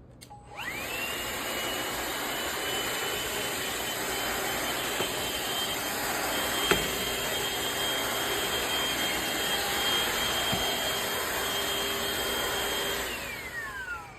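Shark VacMop Pro cordless vacuum mop's motor switching on with a rising whine, running steadily, then winding down with a falling whine near the end. A single sharp click about halfway through.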